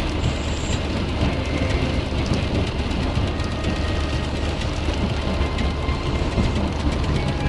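Steady in-car road noise from a car at motorway speed on a rain-soaked road: a constant low rumble of engine and tyres with the hiss of tyre spray and rain.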